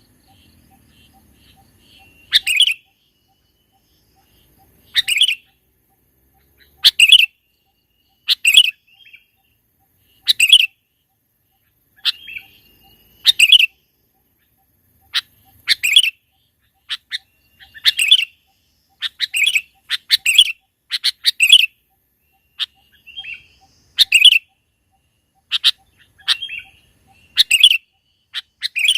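Sooty-headed bulbul (kutilang) calling over and over: loud, short, sharp calls every second or two, some in quick pairs.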